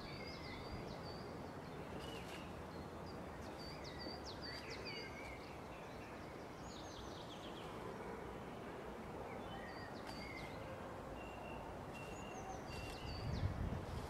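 Small songbirds singing and calling in woodland: short, high chirps and brief trills, repeated on and off over a steady background noise. Near the end there is a brief low rustle or bump.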